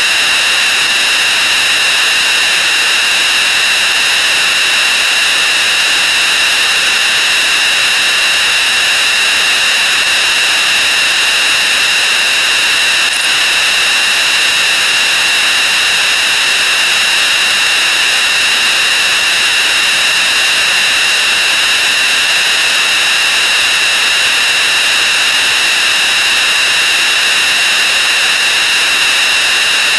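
Many sound effects layered and sped up 64 times, blurred into one loud, unbroken wall of hiss with a steady high ringing band through it.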